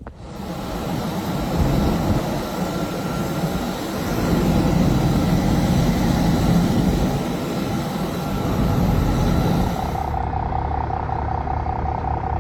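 Steady rumble of a large vehicle's engine and road noise, changing abruptly about ten seconds in to a steadier engine hum.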